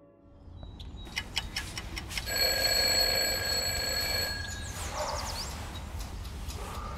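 Bedside alarm clock going off with a steady ringing tone for about two seconds, then cut off abruptly. A few clicks come just before it.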